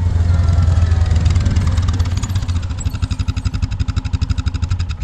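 Vehicle engine idling with a steady low hum that turns into an even throbbing pulse, then cuts off abruptly about five seconds in as the engine is shut off.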